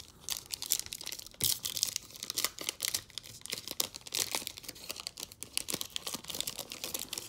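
Foil-wrapped trading-card pack being torn open and its wrapper crinkled, a dense, irregular run of crackles and rips.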